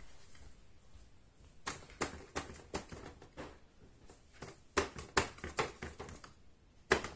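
Paintbrush tapping and dabbing against paper on a wooden easel: a run of irregular light taps, some in quick pairs.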